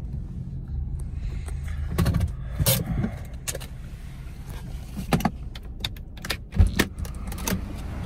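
Subaru idling while someone opens the driver's door and climbs out: a string of sharp clicks and knocks over the engine's low hum, with one heavy low thump about six and a half seconds in.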